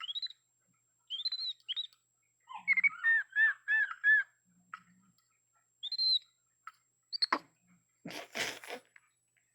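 Young capuchin monkey chirping: short high-pitched arched chirps, with a quick run of about five a few seconds in and scattered single chirps after. A brief noisy scuffle near the end.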